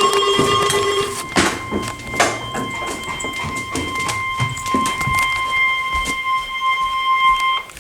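NOAA Weather Radio warning alarm tone: one steady, high, pure beep held for about eight seconds, with crackles of static over it. It cuts off just before the next warning is read. A lower tone sounds with it for about the first second. The alarm signals that a warning broadcast is about to follow.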